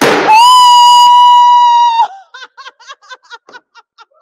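Handheld canned air horn sounding one loud, steady high note for about a second and a half after a short hiss of release, cutting off about two seconds in. Quieter laughing follows.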